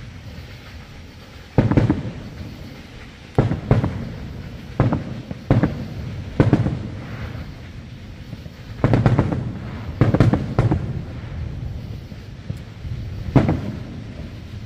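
Aerial firework shells bursting: about ten sharp booms at irregular intervals, each trailing off in a low rumble.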